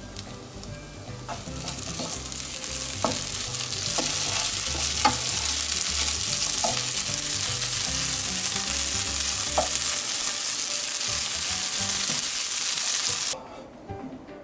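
Kkakdugi fried rice sizzling in a hot nonstick frying pan as it is stir-fried, with a few sharp clicks of the spatula against the pan. The sizzle swells over the first few seconds and cuts off suddenly near the end.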